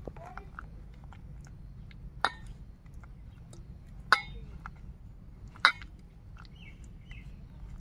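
Sharp clinks against a stainless steel bowl as a hand works slices of taro into thick batter. Three louder clinks come about a second and a half apart, with lighter taps between them.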